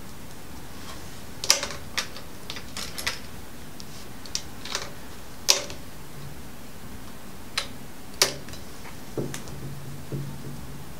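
Irregular sharp clicks and light knocks, about a dozen spread unevenly, from fabric and pins being handled and set in place at a sewing machine. The machine is not running steadily.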